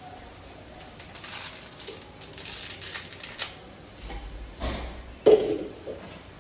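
A bundle of dry spaghetti being snapped in half by hand: a quick run of sharp cracks and crackles. About five seconds in comes a single loud clank of metal with a short ring.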